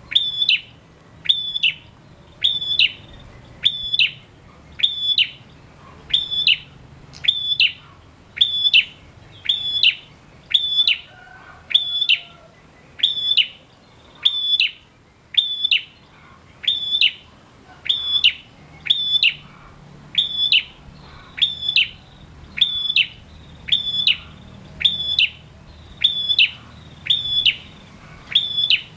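Male prenjak calling non-stop in a steady rhythmic series, about one and a half short, high, chirping calls a second, each dropping in pitch at the end. This is the sustained 'gacor' calling that birdkeepers use to rouse other prenjaks to call.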